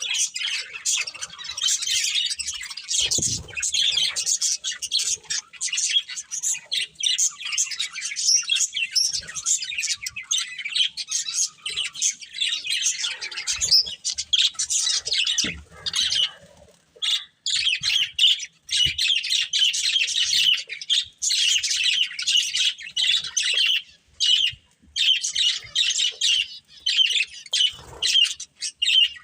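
A group of budgerigars chirping and chattering in rapid, high twittering calls, with a couple of brief pauses.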